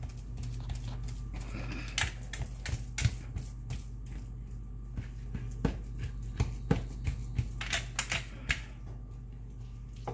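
Hands pressing and patting raw ground-meat meatloaf mixture on a metal baking pan. The result is an irregular run of sharp taps and clicks, densest from about two seconds in until shortly before the end.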